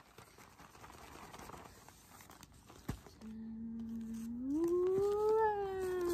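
Wrapping paper and a plastic gift bag rustling as a present is unwrapped. About three seconds in, a person's long, drawn-out exclamation begins, rising in pitch and held for several seconds.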